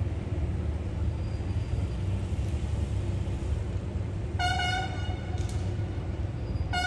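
A short horn blast about four and a half seconds in and another starting near the end, over a steady low rumble.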